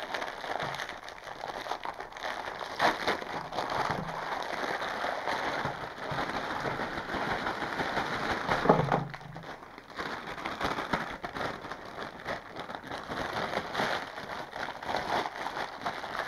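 Thin plastic cookie packaging crinkling and crackling as the outer bag is opened and the individually wrapped packs are shaken out onto a cloth-covered table. There is a single louder knock about nine seconds in, then the rustling goes on more softly.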